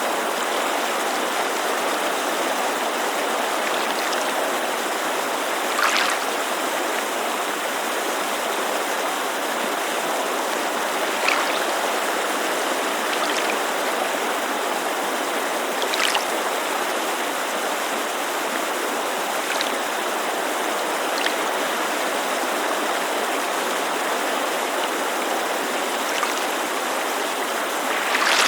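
Steady rushing of a mountain creek, mixed with lake water lapping against the shore, which gives small splashes every few seconds.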